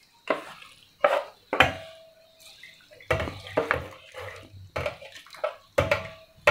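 Steel pot knocking and clinking against the rim of a stainless-steel mixer grinder jar as boiled spinach and its cooking water are tipped in, a string of sharp metallic clanks, one ringing briefly about one and a half seconds in, with some wet splashing.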